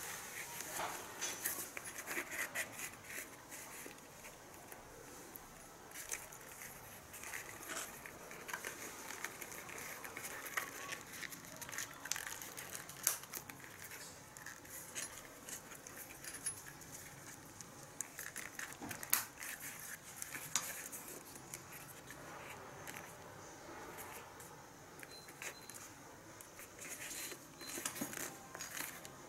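Scattered light clicks, taps and rustles of small objects being handled, with a few sharper clicks now and then.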